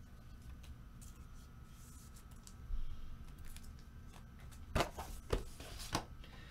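Trading cards and their packaging being handled on a table: faint scattered clicks and rustles, then a few sharp knocks about five seconds in.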